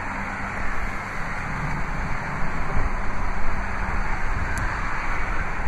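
Steady rushing outdoor background noise with a faint low hum running under it.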